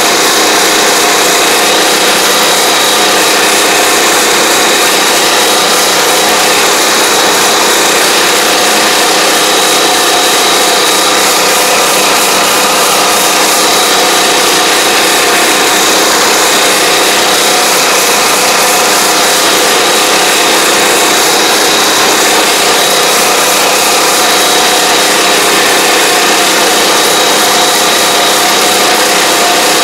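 Small engine of an AP1 riding pesticide sprayer running steadily as it drives along the rows spraying, with a steady high whine over the engine noise.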